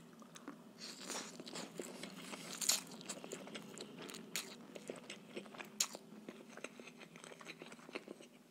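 Close-miked eating of rice noodles: a strand slurped into the mouth, then chewing with many small wet mouth clicks and smacks, the loudest about one, three and six seconds in.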